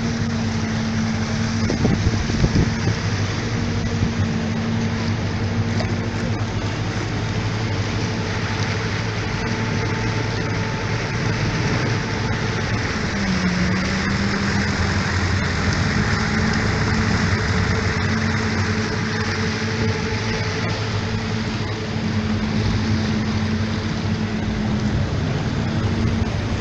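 Motorboat engine running steadily under way, over a constant rushing noise; the engine note drops briefly about halfway through and then comes back up.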